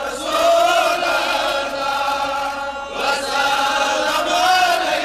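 A man chanting a naat into a microphone, holding long, wavering sung notes. The chant breaks off briefly a little before three seconds in, then goes on.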